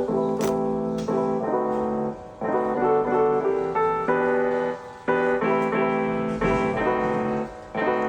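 Background piano music: sustained chords played in short phrases.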